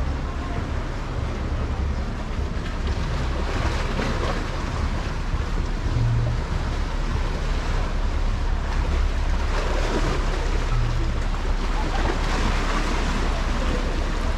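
Sea waves washing onto the beach, swelling and fading every few seconds, over a steady low rumble of wind on the microphone.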